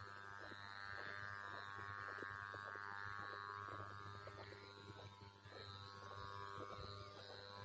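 A faint, steady buzz with many even overtones, over scattered soft clicks and rustles of footsteps through a crop field.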